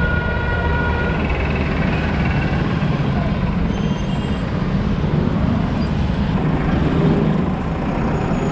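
Suzuki Access 125 scooter's single-cylinder engine running steadily at low speed, with road noise and the sound of the surrounding traffic, picked up by a camera mounted on the scooter. A vehicle horn sounds for about the first two seconds and briefly again about four seconds in.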